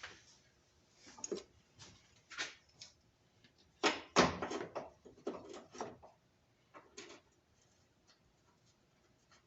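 Scattered clicks and knocks of a metal bracket and its bolts being handled and fitted by hand, loudest in a cluster about four seconds in.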